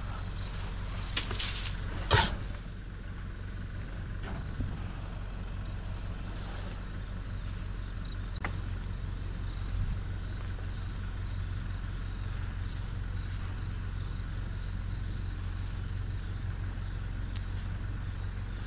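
An engine running steadily at low revs, with a few sharp knocks in the first couple of seconds.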